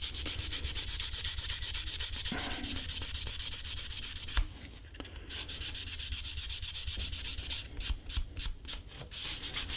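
Fine sandpaper rubbed by hand along a leather edge coated with dried acrylic edge paint, in quick short scratchy strokes about eight a second, pausing briefly just after the middle and turning slower and uneven near the end. The sanding levels the dried coat and scuffs it so the next layer of edge paint adheres.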